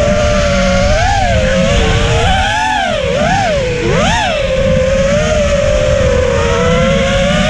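FPV quadcopter's electric motors whining at a steady pitch, which swoops quickly up and down several times in the middle as the throttle is worked, over a rough low rumble.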